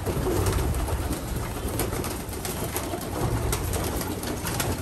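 Racing pigeons cooing in a loft, a steady low wavering murmur, with scattered sharp clicks and taps throughout.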